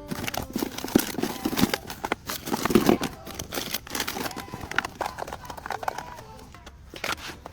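Irregular crinkling and rustling of something being handled, with many small clicks, loudest about a second and three seconds in.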